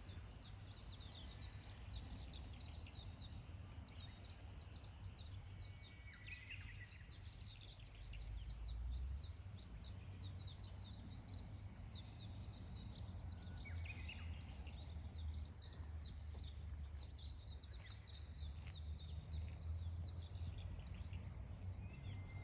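A dense chorus of small songbirds chirping rapidly and continuously, with a lower Japanese bush warbler song phrase recurring about every seven or eight seconds, over a low background rumble.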